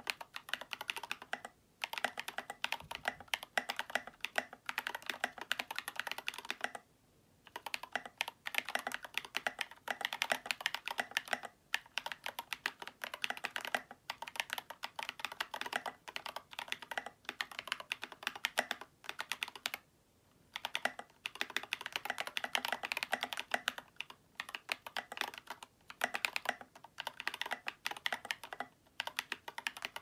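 Fast typing on a Glorious GMMK Pro mechanical keyboard with lubed Glorious Panda tactile switches and SA-profile Oblivion V2 keycaps: a steady stream of key clacks, broken by a few short pauses.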